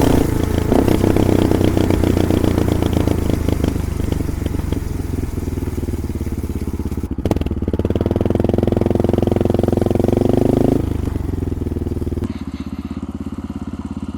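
Honda XR650L's single-cylinder four-stroke engine through an aftermarket exhaust, picked up close to the pipe while riding. The engine note rises and falls with the throttle, breaks briefly about seven seconds in, then drops to a slower, even pulsing near the end as it settles toward idle.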